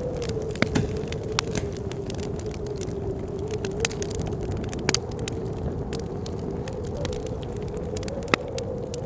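Wood fire crackling with scattered sharp pops, the sharpest near the end, over the steady howl of blizzard wind holding one wavering pitch.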